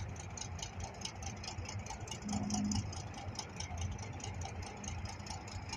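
Diesel locomotive engine idling: a steady low hum with faint regular ticking above it.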